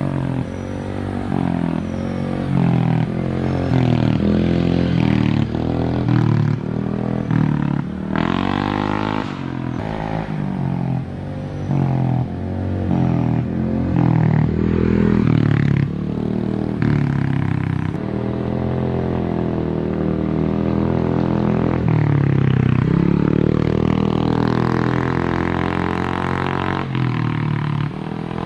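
Honda Beat scooter's single-cylinder engine running through a cheap WRC 'mber' aftermarket exhaust, its pitch rising and falling again and again as the throttle is opened and eased off.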